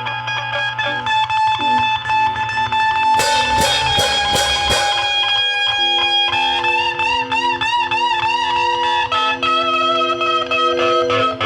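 Music led by an electric guitar: a quick run of picked notes, then held notes with vibrato in the second half.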